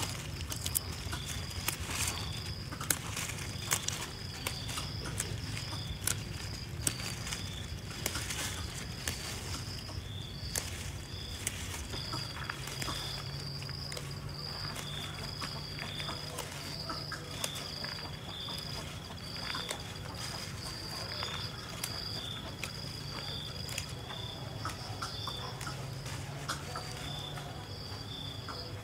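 Insects chirping steadily in two high, pulsing trills, one of them coming and going in runs. Irregular clicks and light knocks sound over them, most often in the first ten seconds or so, with a low hum underneath.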